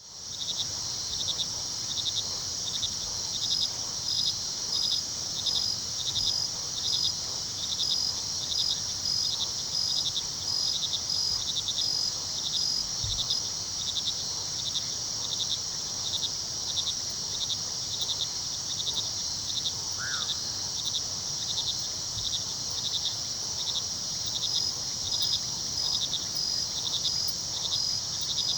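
A night chorus of crickets: a dense, steady high trill with a regular chirp about twice a second, and a second insect's fast, even pulsing over much of it. A single short chirp sounds a little past the middle.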